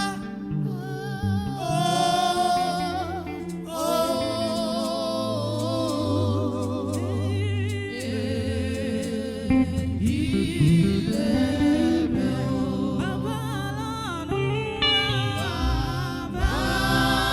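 Gospel singing, a lead voice with backing voices over a steady instrumental accompaniment.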